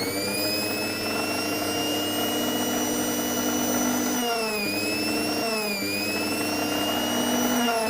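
Philips Simply Silent 600 W mixer grinder's universal motor running at full speed on direct mains with a steady high whine, its new bushes freshly oiled. Twice around the middle the pitch sags briefly and climbs back.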